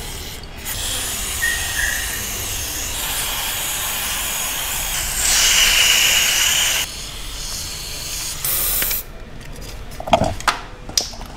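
Aerosol chain cleaner sprayed from a can onto a motorcycle chain, hissing in long bursts, loudest near the middle, then a shorter burst. Near the end come a few light clicks as the can's extension straw falls.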